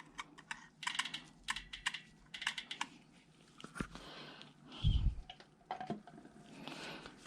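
Bicycle rear hub freehub ratcheting under hand turning: a quick, irregular run of light pawl clicks over the first few seconds. A dull thump follows about five seconds in.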